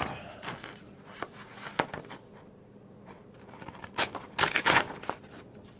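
A dull, half-serrated pocket-knife blade being drawn through a sheet in a slicing test, making short scratchy rasps and tears, with a louder cluster about four seconds in. The edge tears at the sheet rather than slicing it cleanly, a sign that the blade is dull.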